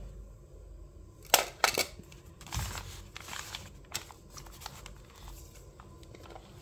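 Paper pages of a handmade journal being flipped by hand: rustling and sharp flaps of paper, loudest about a second and a half in.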